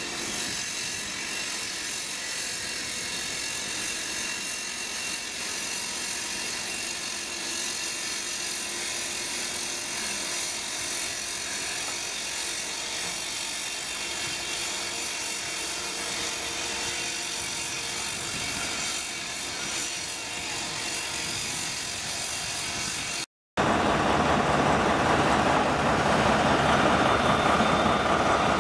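Steady machinery noise from a railway track construction site where a diesel locomotive is shunting loaded flat wagons. Near the end, after a cut, a diesel locomotive passes close by, much louder.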